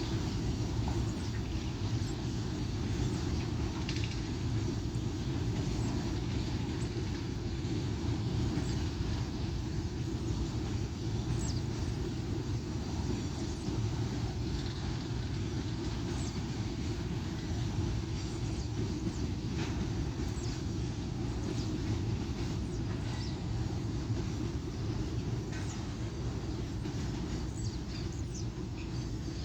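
Freight train passing: a steady low rumble of wheels on the rails, with faint scattered clicks.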